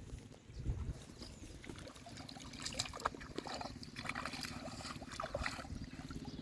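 Water trickling and splashing, with scattered small clicks through the middle and a low steady hum underneath.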